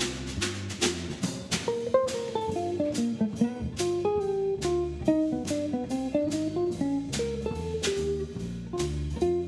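Live jazz trio playing: an archtop electric guitar plays a single-note melodic line over bass guitar notes that change about every beat, with the drum kit's cymbals keeping steady time.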